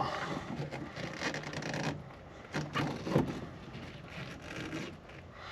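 Irregular rubbing, rustling and a few sharp clicks from the pilot handling controls in a small aircraft cockpit, with the engine not yet started.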